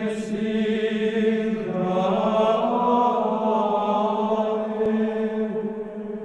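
Slow chant-like music with long, steady held notes. A higher part enters about two seconds in.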